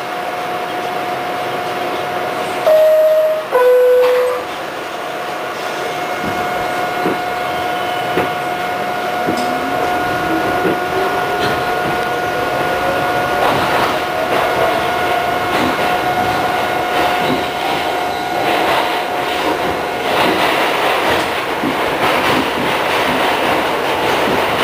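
Westinghouse-equipped R68 subway car heard from inside: a loud two-note falling door chime about three seconds in as the doors close, then the train pulls out of the station, its traction motors whining upward in pitch as it gathers speed before levelling off, with wheels clacking on the rails.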